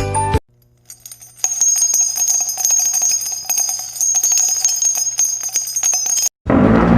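Small bells jingling, with dense, irregular shaken strikes over a steady high ringing, for about five seconds starting about a second and a half in. A short tinkling music cue ends just before, and a different, noisier effect begins near the end.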